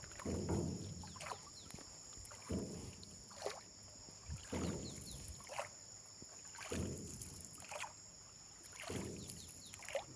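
Oars of a hand-rowed boat dipping and pulling through the water, five strokes about two seconds apart, each with a swish and a splash of water running off the blade.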